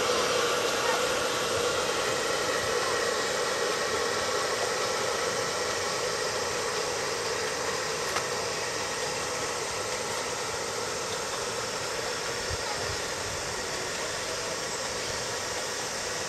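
Saito model steam engine running steadily in a radio-controlled model boat: a steady hiss with a hum, gradually fading as the boat moves away.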